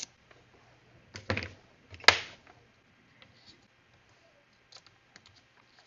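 Small clicks and knocks of plastic model parts being handled on a workbench: a couple of louder knocks, the loudest about two seconds in with a short rustle after it, then faint scattered ticks.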